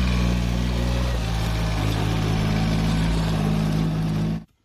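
John Deere 5050D tractor's three-cylinder diesel engine running steadily while pulling a trailer loaded with mud. It cuts off suddenly near the end.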